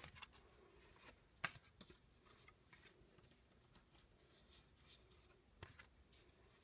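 Near silence with a few faint clicks and rustles of trading cards being handled and set down, the clearest about a second and a half in and again near the end.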